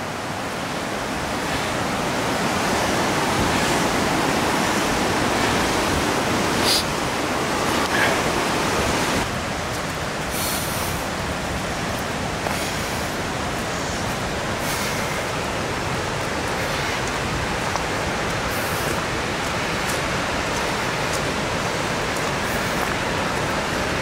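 Steady rush of water from a stream flowing over rocks, with a few brief clicks.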